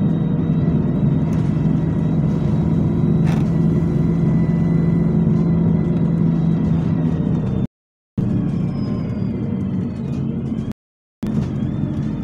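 Bus engine and drivetrain running at speed, heard from inside the saloon: a steady low drone with a thin high whine over it. The sound cuts out completely twice for a moment, about eight and eleven seconds in.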